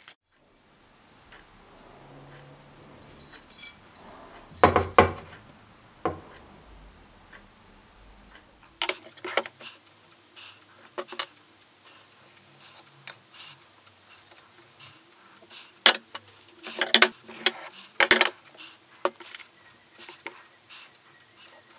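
Steel cleaver blade and a wooden handle blank being moved and set down on a tabletop: scattered clinks and knocks, a cluster a few seconds in and several more later on.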